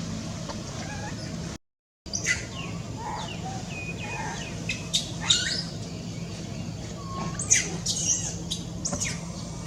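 Baby monkey giving a string of short, high-pitched squeaks and chirps, many of them falling in pitch, over a steady low hum. The audio cuts out completely for a moment about two seconds in.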